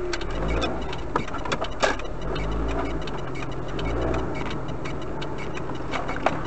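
Car engine and road noise heard from inside the cabin through a dashcam, the engine hum drifting slowly in pitch, with scattered light clicks and ticks throughout.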